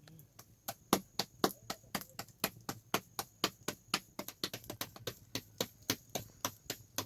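A rapid, even series of sharp knocks, about four a second, starting about a second in.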